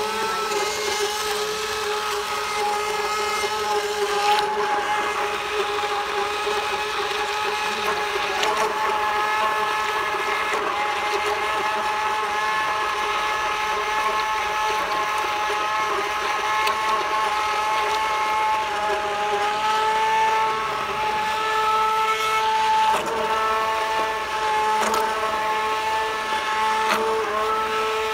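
Handheld immersion blender motor running steadily as it purees cooked butternut squash and coconut milk into soup, a continuous whine whose pitch dips and shifts briefly a few times in the second half.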